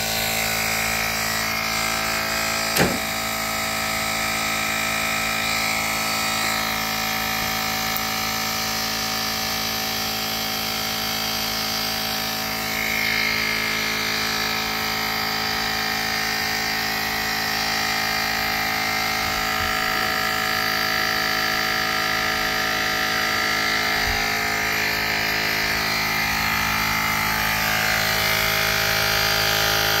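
JM-8817 cordless digital air compressor running steadily, its small motor-driven pump humming as it inflates a flat car tire. A single brief knock about three seconds in.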